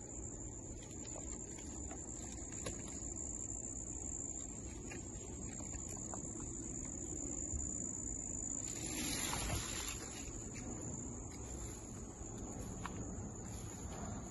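Crickets trilling in a steady, high-pitched chorus. About nine seconds in, grapevine leaves brush against the phone and rustle briefly.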